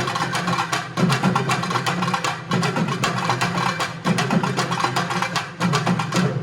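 Urumi, a South Indian hourglass drum, played with rapid, dense stick strokes in repeating phrases about a second and a half long. The playing breaks off at the very end.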